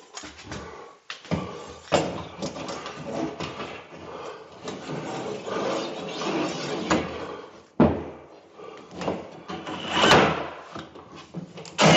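Knocking and scraping as a long flexible fish bit is worked up through an electrical box opening into a drywall cavity, the bit rubbing and bumping against the wall and framing inside. Several louder sharp knocks come in the second half.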